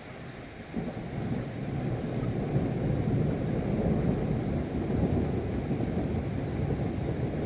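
A long rumble of thunder that sets in about a second in, builds over the next two seconds and keeps rolling, with rain underneath.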